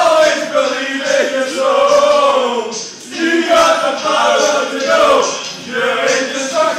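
A group of men singing a chant together, loud and unison-like, in two long sung lines with a brief break about three seconds in.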